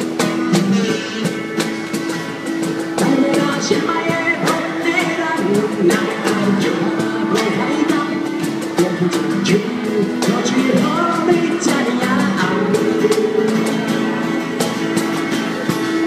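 Live acoustic guitar strumming with a cajón tapping out the beat underneath.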